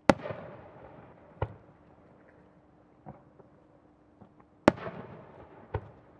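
Aerial firework shells bursting in the sky: two loud booms about four and a half seconds apart, each followed by a fading tail, with smaller bangs between and after them.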